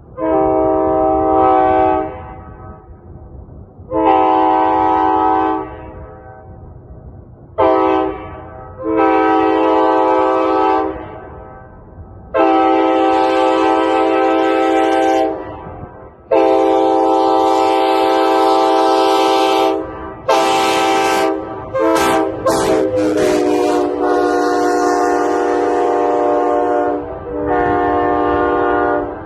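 A 1990s tagless-era Nathan K5HA five-chime air horn sounding a chord in about a dozen blasts, most two to three seconds long. There is a short blast about a quarter of the way in and a quick string of short stabs about two-thirds through, after which the chord briefly bends down in pitch.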